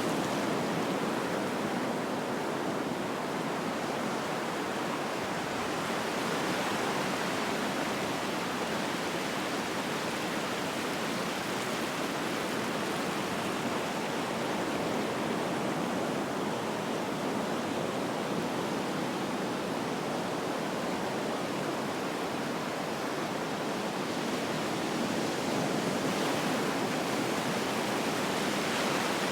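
Ocean surf on a beach, heard up close: a continuous rushing wash of waves with gentle rises and falls in loudness and no single crash standing out.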